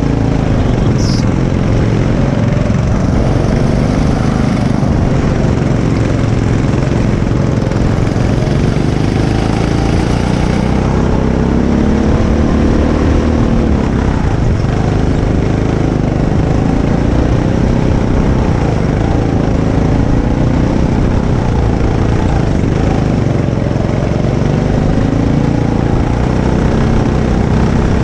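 Go-kart engine heard from the driver's seat, running hard around the track; its pitch rises and falls every few seconds as the driver throttles and lifts through the corners. A brief high squeak sounds about a second in.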